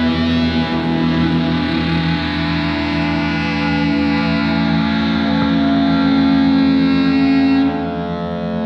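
Indie rock band recording with held, effects-laden guitar chords and no singing. About three-quarters of the way through, the upper sounds cut off and the chord changes.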